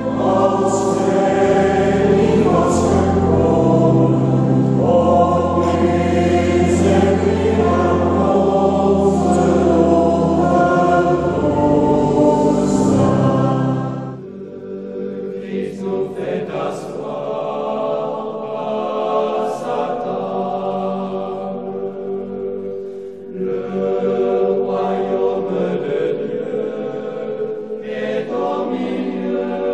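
A small women's choir singing a sacred song. About halfway through, the deep low accompaniment drops out and the singing carries on more quietly.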